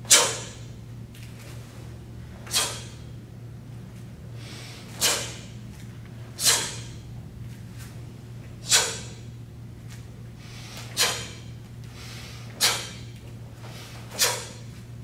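Karate uniform snapping sharply with each block and strike: eight brief cracks, about one every two seconds, over a low steady room hum.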